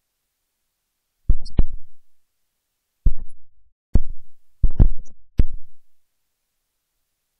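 A series of loud, dull thumps and knocks in short clusters: two about a second in, then single ones around three and four seconds, then a quick run of three near five seconds, with dead silence between.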